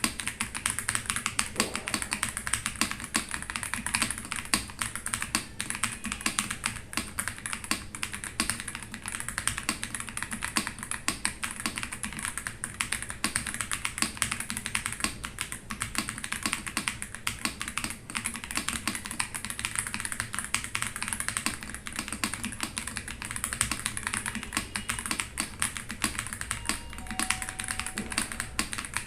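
Continuous fast typing on an Ajazz AK820 mechanical keyboard with Green Plum switches, a dense stream of key clicks and clacks.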